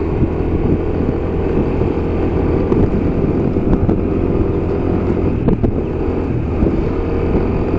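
Steady engine and road noise of a vehicle being driven, heard from on board.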